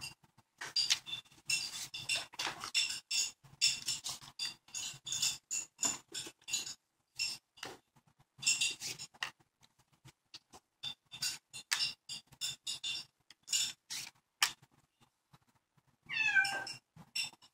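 Hands handling a leather billfold and paper bills: a long run of short rustles and clicks. Near the end a cat meows once, a gliding call that is the loudest sound.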